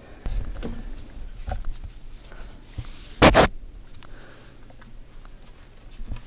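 Someone climbing through a cramped attic among wooden roof trusses: low bumps and rustling of body and clothing against the framing, with one loud, short sniff about three seconds in.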